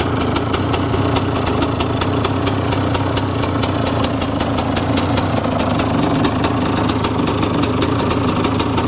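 2014 KTM 125 SX's single-cylinder two-stroke engine idling steadily through its expansion-chamber exhaust, with an even, rapid pulse.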